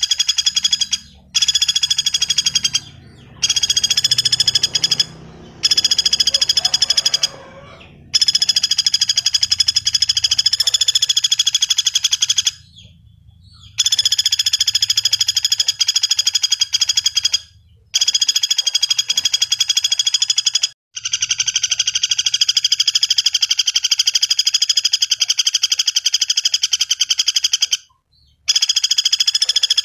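Common flameback woodpecker (pelatuk bawang) giving long, rapid rattling trill calls, one after another, each lasting several seconds with short pauses between them.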